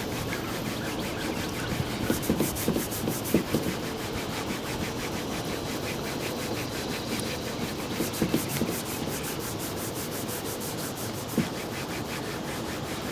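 A washcloth rubbing back and forth over a textured plastic car bumper, wiping off dirt before polishing. The strokes come in two quick, rhythmic runs, about two seconds in and again about eight seconds in, with slower scattered rubbing between.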